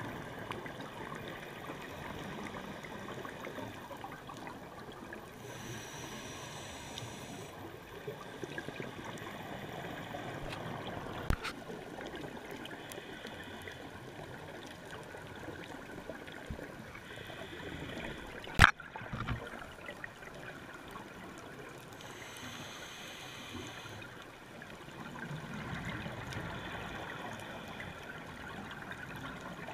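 Underwater scuba dive sound: a steady muffled water noise with swelling bursts of a diver's regulator breathing and exhaled bubbles, and two sharp clicks, a small one about a third of the way in and a louder one past the middle.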